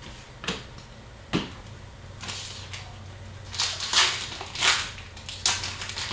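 Trading card packs being opened and the cards handled: two sharp clicks, then a run of short crinkling rustles, louder in the second half.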